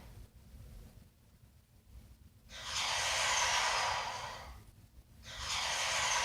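A cartoon sound effect: two breath-like rushes of noise, each swelling and fading over about two seconds, the first starting about two and a half seconds in.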